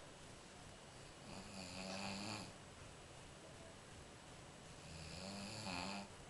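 A person snoring: two drawn-out snores, each lasting a little over a second, about three and a half seconds apart.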